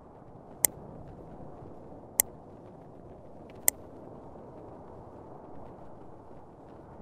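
Steady low background rumble of outdoor noise, broken by three sharp clicks evenly spaced about a second and a half apart in the first half.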